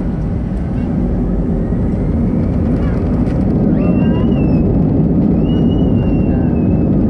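Airbus A320-214's CFM56 engines running, heard inside the cabin over the wing: a steady engine noise with a high whine that rises in pitch about four seconds in as the sound grows louder, a thrust increase.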